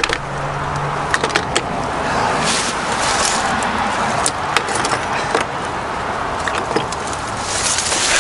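A few light metallic clicks of tools being picked out of a socket-set case, over a steady rushing background noise.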